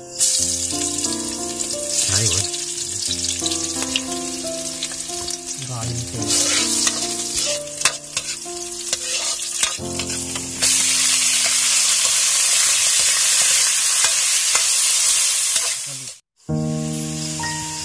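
Garlic and onion frying in hot oil in a wok, sizzling while stirred with a metal spatula. The sizzle grows much louder about eleven seconds in, then cuts off briefly near the end.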